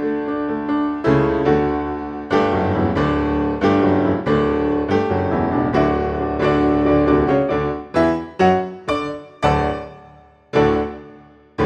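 Background piano music: a gentle piece of struck notes and chords. Near the end it slows to a few single chords, each ringing out and fading.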